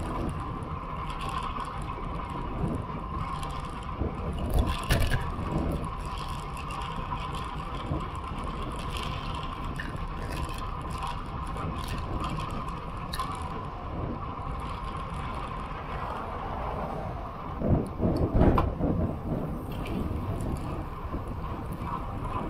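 Road bicycle rolling on asphalt, heard from a bike-mounted camera: steady wind rush on the microphone with tyre and road noise. Louder buffeting about five seconds in and again around eighteen seconds.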